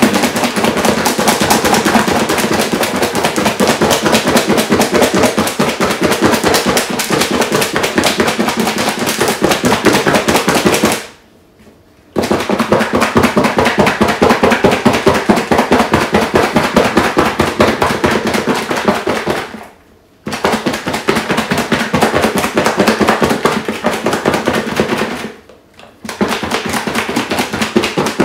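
Seasoned chicken backs thumping and rattling inside a lidded plastic bowl that is being shaken hard to coat them in seasoning: a dense, rapid clatter, broken by three brief pauses, the first about a third of the way in and the others near the end.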